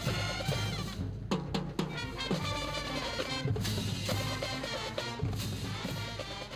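High school marching band playing live: brass over a drumline beat, with sharp drum strokes.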